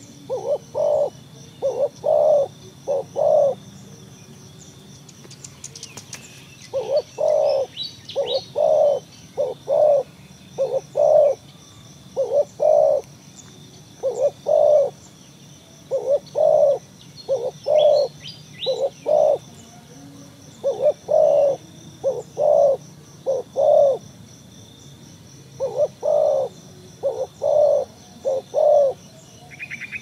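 Spotted doves cooing: phrases of three to five low coos, repeated every few seconds, over a faint steady high trill.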